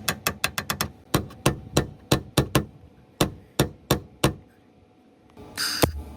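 Hammer blows on sheet-metal body panel, a rapid series of about twenty sharp strikes that slows after the first second and stops about four seconds in. A short hissing burst comes near the end.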